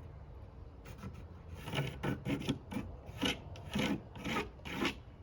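A series of short, rough rubbing strokes on plywood, about two a second, starting about a second in.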